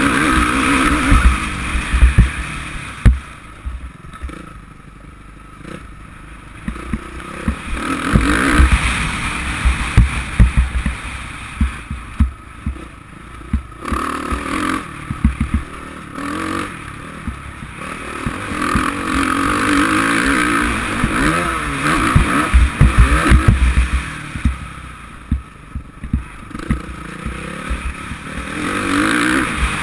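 Suzuki RM-Z450 four-stroke single-cylinder motocross engine, heard from a helmet camera, revving hard and then dropping back off the throttle every few seconds as the bike is ridden round the track. Sharp knocks and clatter come through as it runs over the rough, bumpy dirt.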